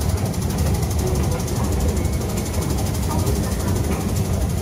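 Steady low rumble and general noise of a busy metro station concourse, picked up close on a handheld phone's microphone while walking.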